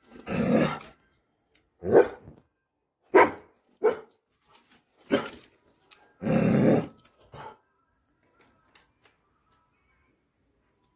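Doberman pinscher barking, about seven barks a second or so apart, two of them drawn out longer, then stopping about eight seconds in.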